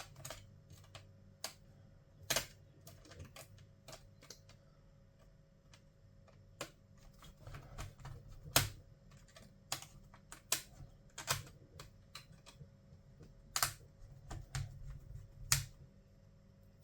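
Irregular small clicks and taps, a few of them sharper and louder, from laptop parts and tools being handled, over a faint steady low hum.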